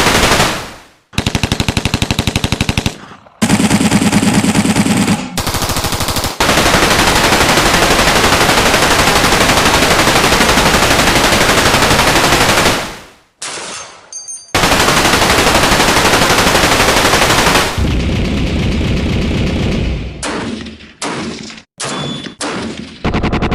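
Machine gun sound effect: a series of rapid automatic-fire bursts of differing length and tone, the longest lasting about six seconds, with a run of short bursts near the end.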